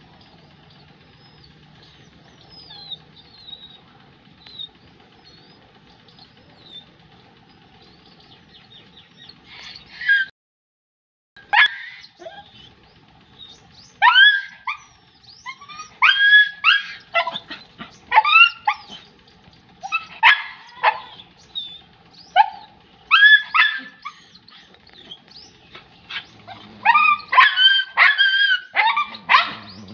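German shepherd puppy barking in short, high-pitched yips. They start about ten seconds in, come in clusters, and come fastest near the end.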